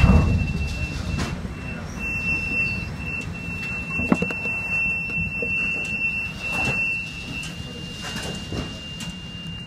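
Storm sea and wind against a ship: a large wave bursts over the bow right at the start, then a steady wash of wind and spray with a few knocks. A thin, steady high whistle runs through it.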